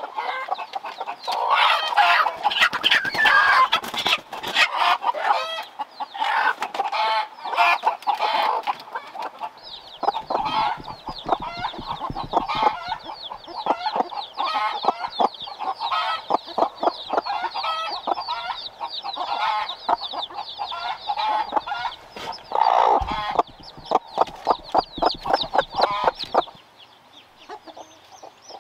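A hen clucking and her newly hatched chicks peeping in quick, high chirps. The calls stop abruptly about two seconds before the end.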